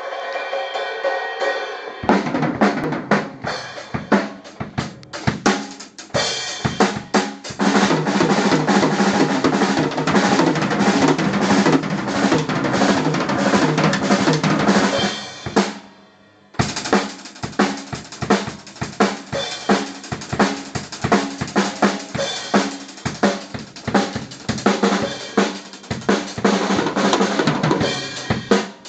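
Acoustic drum kit played hard: bass drum, snare, toms and cymbals. It is preceded by a steady pitched tone for the first two seconds. The playing stops for about a second around the middle, then comes back as a steady beat.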